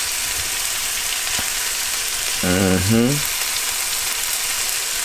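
Steak sizzling steadily in butter with onions and garlic in a frying pan with the heat turned up. A brief rising hum from a man's voice comes about two and a half seconds in.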